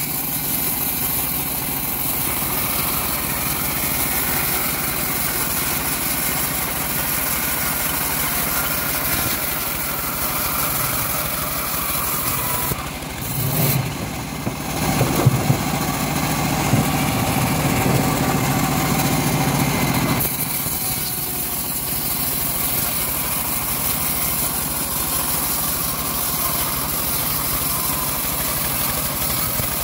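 Homemade engine-driven bandsaw mill running steadily, its blade ripping through an old teak log. Near the middle the sound dips briefly, then runs heavier and louder for several seconds before settling back.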